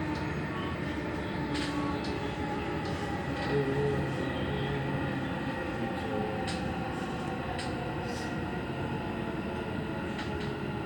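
Dubai Metro train running between stations, heard from inside the passenger car: a steady rumble of wheels and running gear with a few faint, short clicks.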